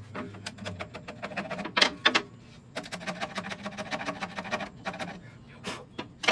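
Hand chisel scraping and paring the cheek of a plywood half-lap joint in quick repeated strokes, in two runs of a couple of seconds each, cleaning up the table-saw cut, with a couple of single clicks near the end.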